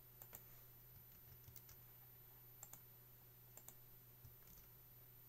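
Faint clicks of a computer mouse, mostly in quick pairs about once a second, over a faint steady low hum.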